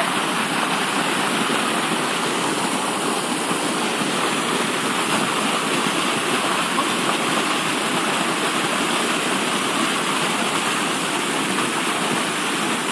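Water gushing down a plastic-lined chute into a lake, a steady rush and splash as a load of live fish is released to stock the lake.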